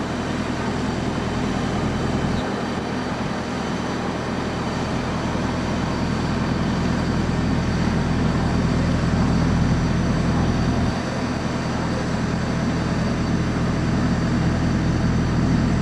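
Steady low mechanical rumble with a constant hum, like a running engine, unchanging throughout.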